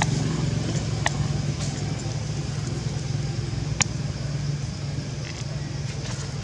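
A steady low motor hum, like an engine running nearby, with a few sharp clicks over it, the loudest just before four seconds in.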